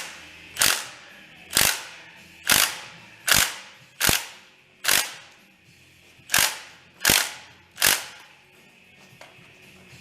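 Hammer striking metal: about ten sharp, ringing blows, roughly a second apart, with a short pause midway.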